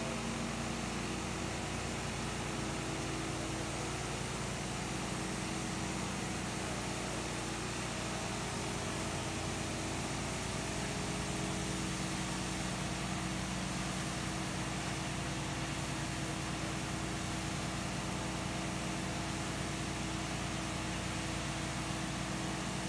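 Touchless car wash machine running through a wash: a steady machine hum under the hiss of high-pressure water jets spraying over a car.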